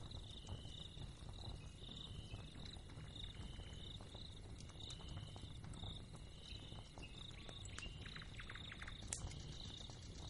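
Faint ambience of chirping insects: a short chirp repeating about twice a second over a steady low background noise, with a few soft clicks near the end.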